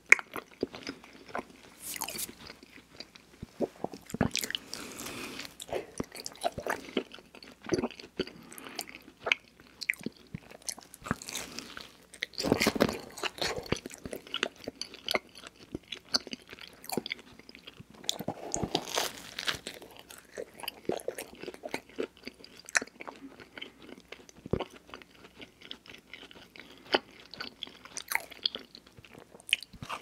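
A person chewing cheese pizza, with a steady run of irregular mouth smacks and clicks and a few longer spells of chewing; near the end he bites into another slice.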